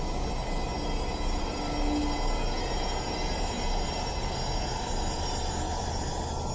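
Dark ambient drone music: a dense, steady, noisy industrial texture, heaviest in the low end, with faint thin high tones held above it.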